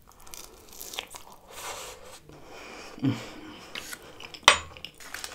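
Close-miked chewing of a mouthful of fries with beef stew, with soft mouth and eating noises and a sharp clink of a metal fork against the ceramic dish about four and a half seconds in.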